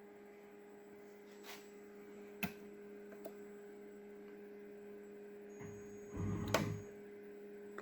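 A steady low electrical hum, with a few faint clicks and a brief low rumble about six seconds in.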